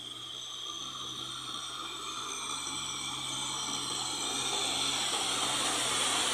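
Kubota tractor's diesel engine running under load as it pulls a rotary tiller through flooded paddy mud, with a high whine over it, growing steadily louder.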